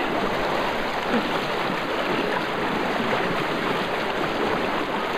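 Shallow river water rushing and splashing steadily around a wooden boat's hull and the legs of people wading beside it.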